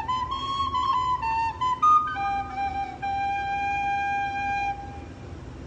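A small end-blown fipple flute played by mouth: a quick run of changing notes, then one long held note that stops about a second before the end.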